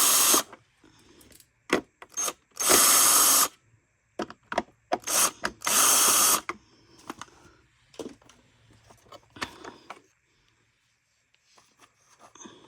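Power drill-driver backing out screws from a vacuum's plastic base housing in three short runs, the first at the start, the next about 3 and 5.5 seconds in. Scattered clicks and light rattles of the loosened plastic parts follow.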